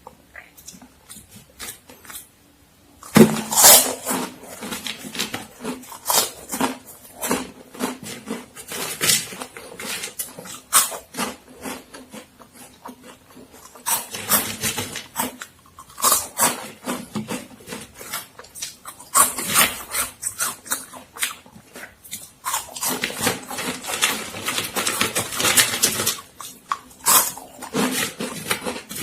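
Crunching and chewing of crisp Momogi puffed corn-stick snacks: dense, crackling crunches that start suddenly about three seconds in and go on with a few short pauses.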